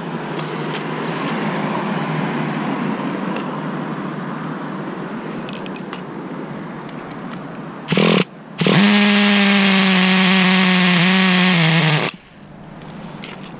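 Traxxas TRX 3.3 two-stroke nitro engine of an RC car running. For the first eight seconds the sound varies and slowly fades. After a short loud blip it holds a loud, steady high-revving whine for about three and a half seconds, then cuts off abruptly about twelve seconds in.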